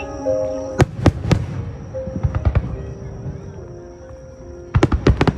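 Aerial fireworks shells bursting: three sharp bangs about a second in, lighter cracks around two and a half seconds, and a rapid cluster of bangs near the end. Music with long held notes plays underneath.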